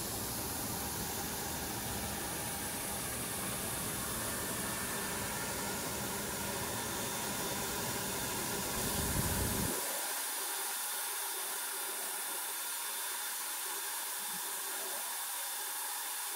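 Steady hissing noise of solar-panel recycling machinery running, with a few faint steady tones in it. About ten seconds in, the deep part of the sound drops out, leaving a thinner hiss.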